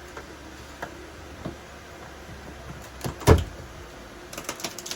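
Tongue-and-groove wooden wall boards being worked loose: a few light knocks, then one loud sharp knock about three seconds in, followed by a quick run of small clicks and rattles near the end.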